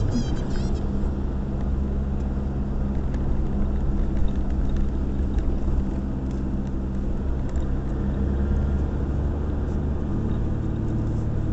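Steady drone of a car's engine and tyres on a wet road, heard from inside the cabin.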